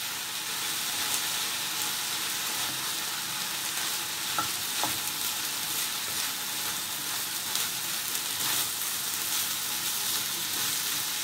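Fried rice with diced meat and peppers sizzling in a frying pan while a wooden spoon stirs and scrapes through it, with a few light knocks of the spoon against the pan.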